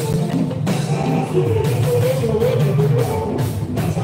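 Live Fuji music over a PA system: a man singing into a microphone over an even pulse of drums and percussion.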